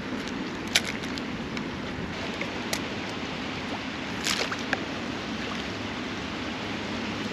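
Small stream running and trickling steadily, with a few brief clicks over it.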